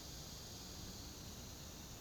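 Faint, steady chorus of insects in the background, a continuous high-pitched drone with no other distinct sound.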